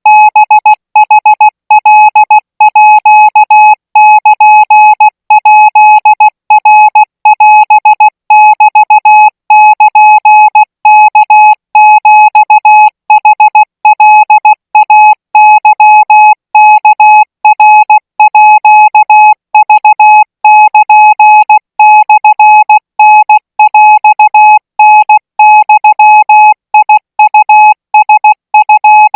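Morse code tone at one steady pitch, keyed on and off in short and long beeps: Thai Morse code sent at 20 words per minute.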